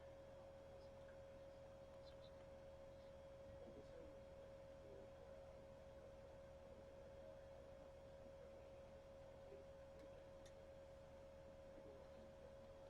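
Near silence: faint room tone carrying one steady, unchanging pitched tone in the mid range, with a few tiny ticks.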